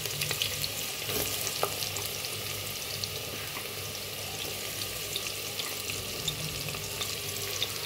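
Sliced onions frying in hot oil, being fried till golden: a steady sizzle with many small crackles.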